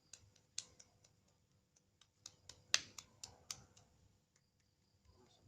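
A series of sharp clicks: two early on, then a quicker run of about six, roughly four a second, between two and three and a half seconds in.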